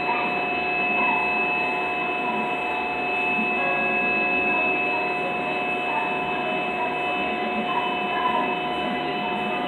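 LPKF ProtoMat S64 PCB milling machine running, its high-speed spindle milling the copper of a circuit board's bottom layer. It makes a steady whine of several held tones over a noisy hiss, with small shifts in pitch as the head moves.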